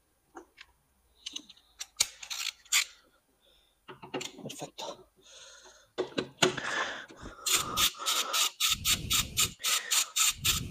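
Long ratchet with a 12 mm socket turning out a bolt of the lower airbox housing. It starts with a few scattered clicks and knocks, then from about two-thirds of the way in the pawl clicks in quick, even strokes, about four or five a second.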